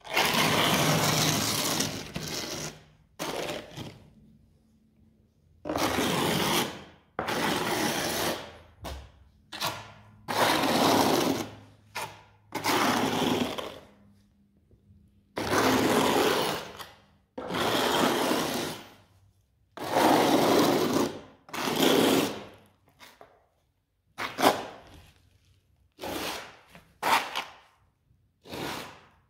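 Steel notched trowel scraping tile adhesive across the ribbed back of a ceramic floor tile, combing it into ridges: a long run of scraping strokes, each about a second long, with short pauses between them.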